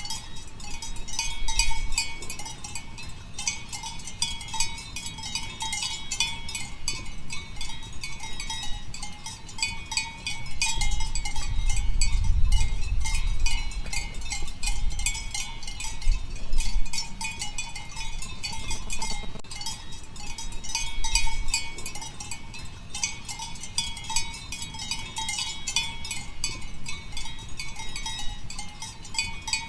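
Goat bell clanking irregularly and continuously, with many jangling strikes a second over a steady ringing tone. A low rumble rises under it for several seconds past the middle.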